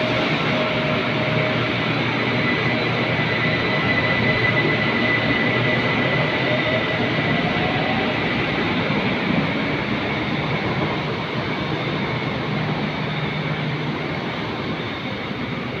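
Siemens EMU-A2 electric train at an elevated station platform: steady train noise with a thin, high whine through the first half. The sound eases off slightly over the last few seconds.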